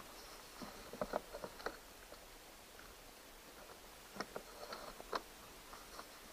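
Hand pressing and working a round hatch cover into its opening on a plastic kayak hull: faint rubbing and a few small clicks, in a cluster about a second in and again around four to five seconds in.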